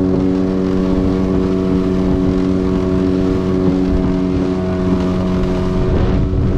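Outboard motor of a small aluminium tinny running at a steady speed, a constant engine drone with no change in pitch.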